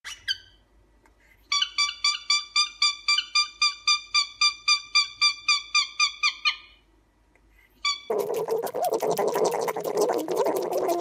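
Cockatiel calling: a fast, even run of short whistled notes, about four a second, for roughly five seconds. About eight seconds in it gives way to guinea pigs eating, a dense crackling of chewing.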